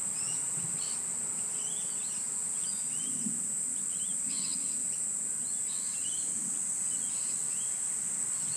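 A steady, high-pitched insect chorus, with scattered short bird chirps over it.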